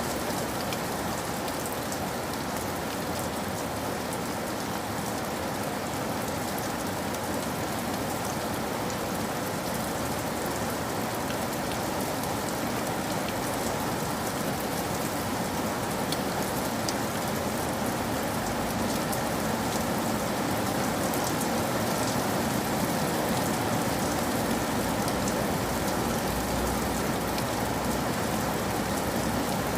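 Steady rain pattering on a roof, an even hiss full of fine drop ticks. A low rumble comes up about halfway through and holds to the end.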